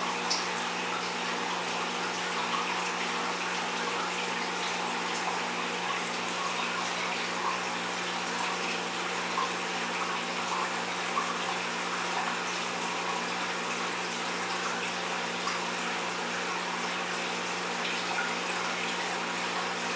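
Aquarium filtration running: a steady rush and trickle of water with a low steady hum under it.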